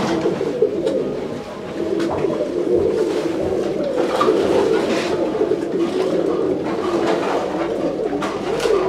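Many domestic pigeons cooing at once in a dense, continuous low chorus, with a few short sharp noises scattered through it.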